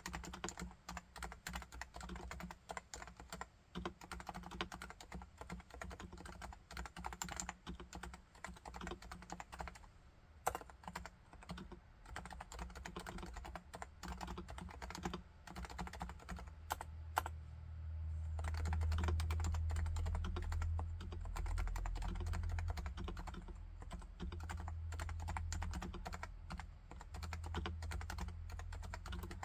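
Typing on a Topre Realforce R2TLSA silent keyboard with 45 g electro-capacitive switches: a fast, continuous run of muted keystrokes that thins out briefly about a third of the way in. A low rumble comes in a little past halfway and continues under the typing.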